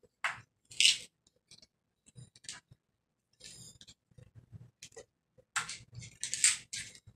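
Small plastic bottle and painting supplies being handled on a tabletop: a scatter of short scraping, rustling clicks and light knocks, loudest about a second in and again near the end.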